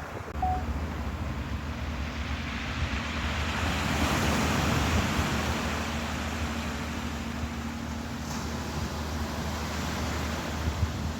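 Ocean waves washing in, the rush swelling to its loudest about four seconds in, over a steady low hum.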